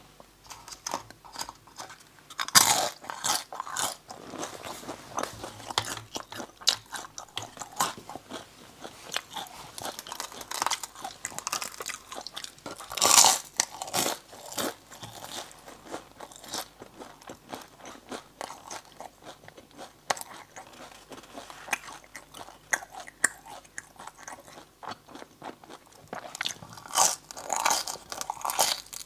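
Close-miked eating of glazed braised pork large intestine: bites and steady chewing, with loud bites about 2.5 s in, around 13 s and again near the end.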